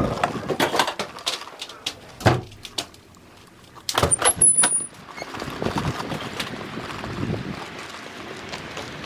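Footsteps and handling knocks, then a door banging open about four seconds in with a brief high squeak. After it comes a steady outdoor hiss.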